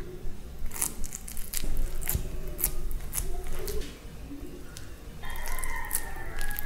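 Table knife and silicone spatula spreading a soft mashed-egg filling over bread, with a run of light scrapes and clicks as the blade works against the spatula and bread. A held tone joins in the background about five seconds in.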